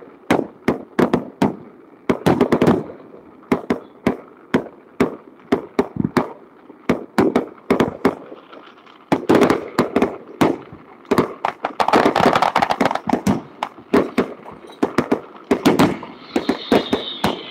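Fireworks grand finale: aerial shells bursting in rapid, uneven volleys of sharp bangs, several a second, packing into denser clusters every few seconds. A high whine comes in near the end.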